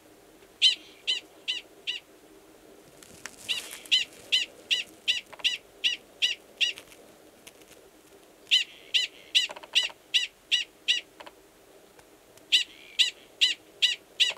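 Male Gunnison's prairie dog giving its mating call: a run of short, sharp, high-pitched barks, about two or three a second, in four bouts with brief pauses between. The mating call sounds the same as the species' alarm call and is given before the male goes underground to mate with an estrous female.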